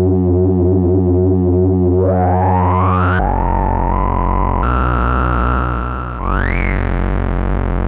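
Musonics Vanilla 5U modular synthesizer playing held low, buzzy notes from a keyboard while its knobs are turned. A tone sweeps upward about two seconds in, the note changes twice, and a quick rising glide comes near the end.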